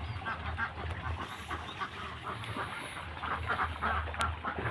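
Birds calling in short, quickly repeated notes over a low steady hum.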